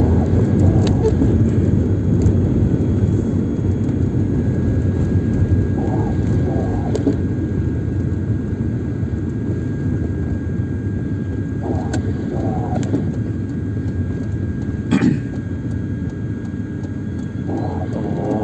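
Steady in-cabin road and engine noise of a Mercedes-Benz W202 driving slowly on a rain-wet road, a low rumble throughout. There is a single sharp click about fifteen seconds in.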